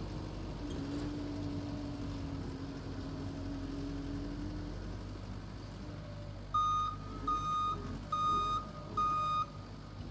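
The engine of the machine driving a power rake runs steadily, then its reversing alarm beeps four times, about two-thirds of the way in, as the machine backs up.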